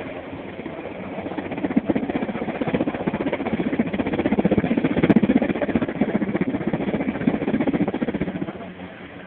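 Sikorsky S-58T helicopter's rotor chop, a rapid pulsing beat that swells louder through the middle and fades near the end.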